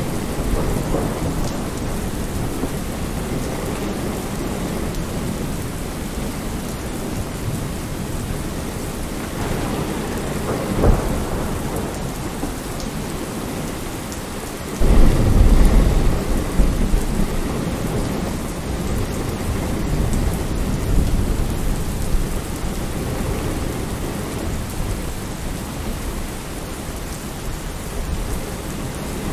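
Steady rain falling, with a sudden low rumble of thunder about halfway through that swells and dies away over a few seconds.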